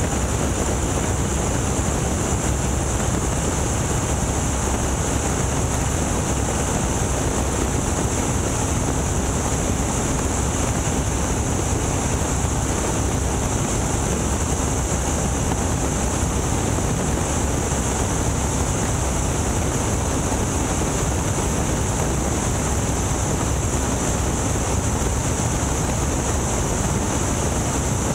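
Boeing Stearman biplane's radial engine and the airflow over its open cockpit in flight, a steady noise with wind on the microphone that does not change.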